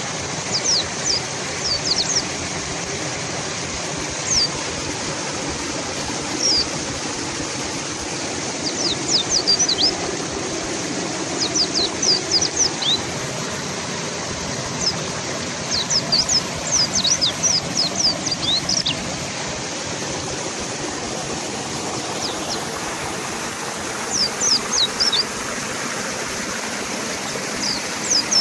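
River water rushing in a steady hiss, with mountain white-eyes calling over it in short bursts of high, thin chirps every few seconds.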